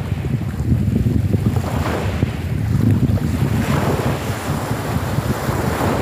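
Small sea waves breaking and washing onto a pebble beach, a wash swelling about every two seconds, over a constant low rumble of wind on the microphone.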